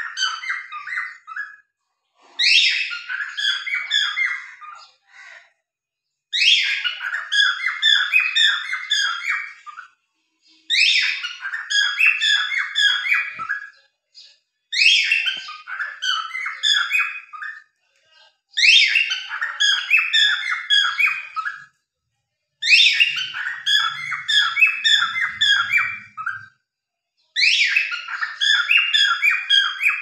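Cockatiels chirping and squawking in repeated bursts of about three seconds, coming roughly every four seconds. Each burst opens with a sharp high note and runs into a string of rapid chirps.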